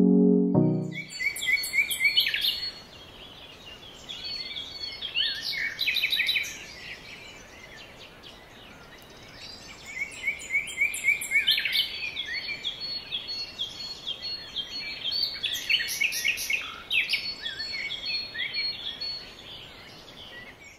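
Birds singing: quick runs of high chirps and trills in two long bouts, over a faint steady background hiss.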